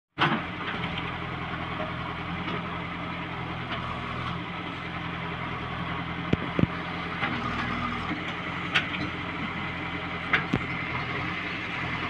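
JCB 3DX backhoe loader's diesel engine running steadily while the backhoe arm works, with a few short sharp knocks, two close together about six and a half seconds in.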